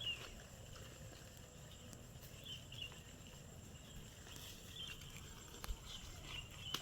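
Faint outdoor ambience with scattered short, high chirps and a couple of light clicks near the end.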